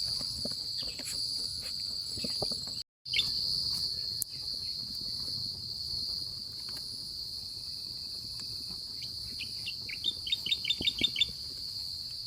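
Steady high-pitched insect chorus, crickets by their sound, with faint scattered ticks; it cuts out for a moment about three seconds in. Near the end a bird calls a quick run of about eight short notes.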